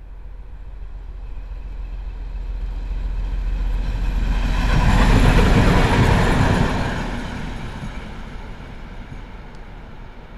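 2M62 twin-section diesel locomotive approaching and passing close by, its two-stroke V12 diesel engines running and its wheels running on the rails. The sound builds steadily to a peak about five to six seconds in, then fades as the locomotive moves away.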